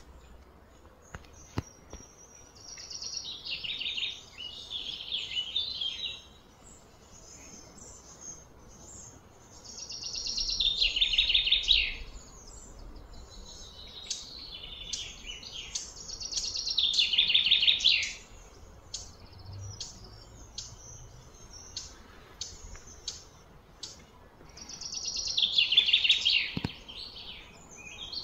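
A songbird singing: four phrases of fast, rapidly repeated high notes, each a few seconds long and dropping in pitch, with short chirps in between.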